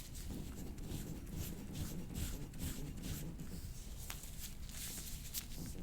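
Hands rubbing and working over a patient's back and clothing during chiropractic soft-tissue work: a run of scratchy rustling and scraping, with one sharp click about four seconds in.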